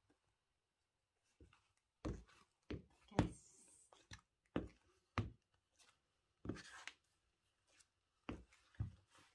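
Footsteps in big chunky-heeled sandals: a string of short knocks of the heels on a hard floor, mostly in pairs about half a second apart.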